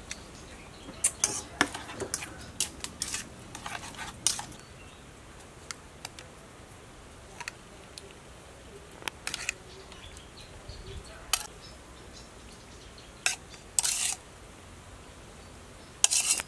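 Spoon clinking and scraping against a small bowl while stirring a sauce: scattered short clicks and light scrapes, with two longer scrapes near the end.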